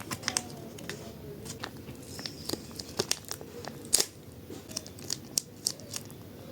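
Plastic food packaging being torn open and crinkled in the hands: a run of irregular crackles and tearing snaps, the sharpest about four seconds in.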